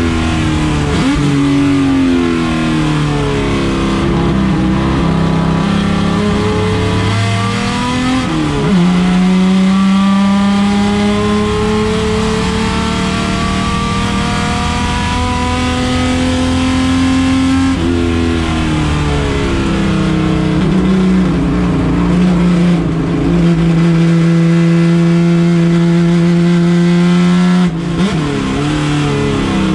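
Chevrolet Opala race car engine running hard under load. Its pitch climbs steadily for many seconds at a time, then drops sharply three times, about a third of the way in, near the middle and near the end.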